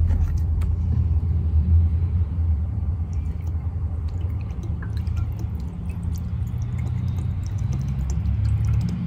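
Water being poured from a plastic jug into the PVC priming fitting of a shallow-well jet pump to prime it, with a steady low rumble throughout.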